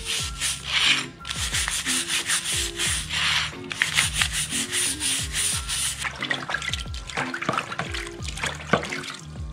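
A degreased bicycle chainring being scrubbed by hand: rough rubbing strokes about once a second, lighter and more scattered in the last few seconds. Background music plays underneath.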